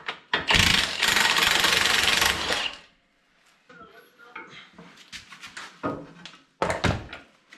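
Cordless impact wrench hammering a bolt home for about two seconds, drawing the tractor's engine and transmission halves back together. Then a ratchet clicks faintly, and a couple of sharp metal knocks come near the end.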